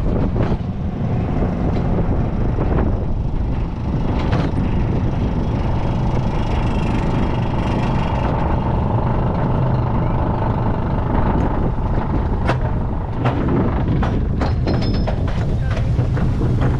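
Roller coaster train climbing the chain lift hill of Wildfire, an RMC wooden coaster, with wind on the microphone: a steady mechanical rumble with a hum through the middle of the climb. Scattered sharp clicks come in the second half as the train nears and crosses the crest onto the wet track.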